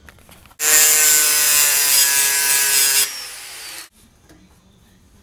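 An electric power tool runs at a steady speed for about two and a half seconds, then drops in level and winds down in pitch before stopping abruptly.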